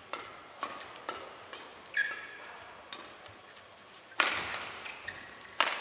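Badminton rackets striking the shuttlecock in a fast doubles rally, with sharp hits about every half second. About four seconds in comes a much louder smash, followed by another hit near the end.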